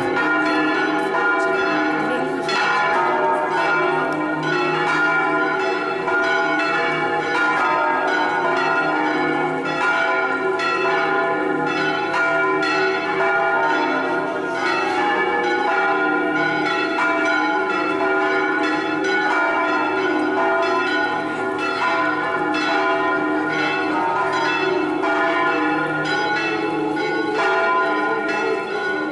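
Full solemn peal of a cathedral's large bronze swinging bells: five of its six-bell ring in E-flat (all but the fourth bell), swung electrically in the Italian 'a slancio' way. Their strikes overlap continuously with no pause.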